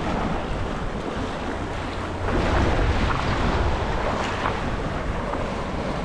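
Wind buffeting the microphone over the steady wash of surf against the rocks of a jetty, growing a little louder about two seconds in.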